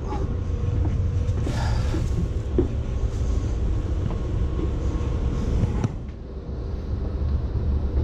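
Steady low mechanical hum of HVAC equipment running, with a few short rustles and knocks. The hum drops for about a second around six seconds in.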